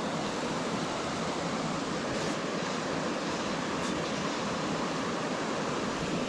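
Shallow river flowing over stones: a steady rush of water. Two faint swishes, about two and four seconds in, come from a fly line being cast.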